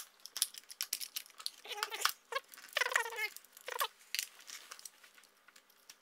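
Clicks and small rattles of plastic and metal parts as the side cover of a cheap petrol chainsaw is opened and taken off, with two short squeaks about two and three seconds in.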